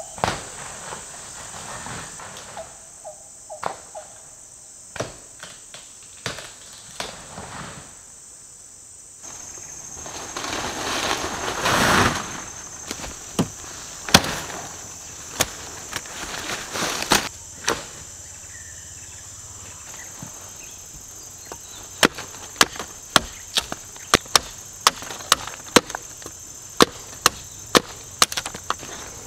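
Camping tent being pitched: handling noises and scattered knocks, then near the end a run of sharp knocks about two a second, over a steady high drone of forest insects.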